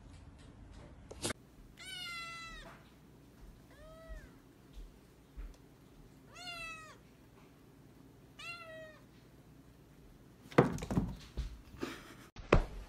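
Tabby kitten meowing four times, short falling calls about two seconds apart, the second one fainter. Near the end come a few loud thumps.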